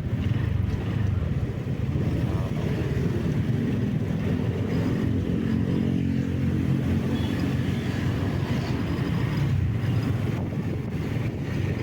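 A vehicle's engine running steadily while on the move, with road noise. The engine note stands out more clearly in the middle stretch.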